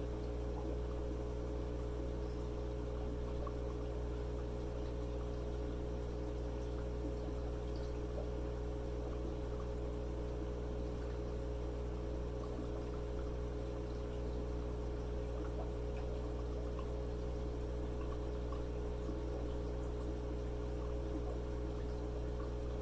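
Aquarium air pumps humming steadily, with a faint trickle of air bubbling through water.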